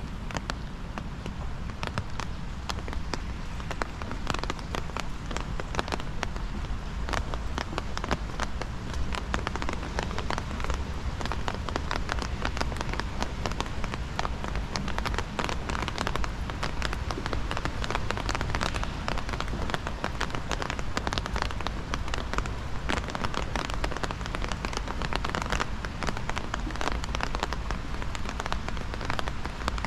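Steady rain, with a dense, continuous patter of close raindrop ticks over a hiss of falling rain.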